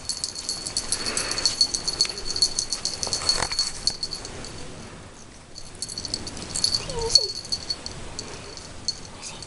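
Fast light rattling for most of the time, with a short break about halfway, and one brief high whine from a Yorkshire terrier puppy about seven seconds in.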